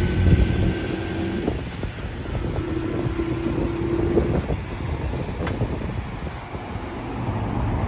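A 50cc moped's small engine running under way in city traffic over a low rumble. The engine's steady hum is heard for the first second and a half, drops away, then returns for about two seconds.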